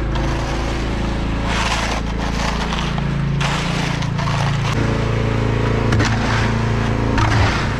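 An engine running steadily, its pitch shifting about two-thirds of the way through, with repeated bursts of rough scraping noise over it.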